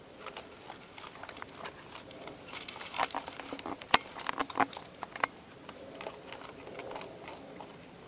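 Raccoons' claws clicking and pattering on wooden deck boards: a scatter of light taps that thickens about two and a half seconds in, with one sharp click near the middle the loudest.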